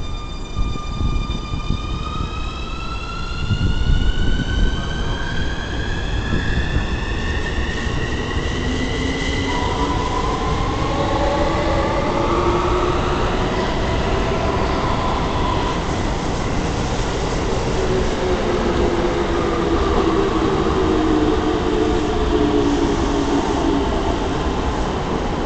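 Keikyu 1000 series electric train pulling away from the platform. Its motors give a whine of several tones that glide up in pitch together as it speeds up, followed by more climbing tones lower down. The rolling noise of the cars passing goes on throughout.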